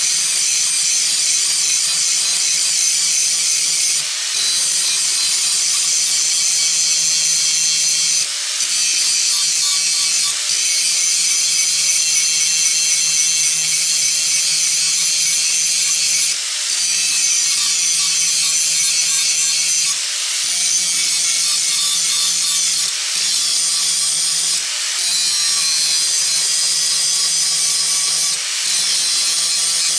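Handheld electric grinder grinding weld beads down flush with the surface: a steady motor hum under a harsh high grinding hiss. The hiss breaks off briefly about eight times as the disc is eased off the work.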